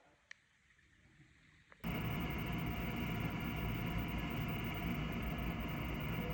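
Goodman gas furnace running: a steady loud noise with a hum in it cuts in abruptly about two seconds in, after a few faint clicks.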